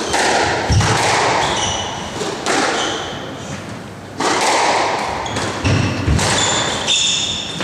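Squash rally: rackets striking the ball and the ball thudding off the walls and floor, several sharp hits with heavy thuds about a second in and again near six seconds. Rubber-soled court shoes squeak in short bursts on the wooden floor as the players lunge and turn.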